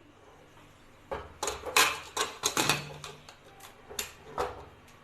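Metal clinks and knocks as a pressure cooker's lid is fitted and locked shut, about a dozen sharp strikes between one and four and a half seconds in.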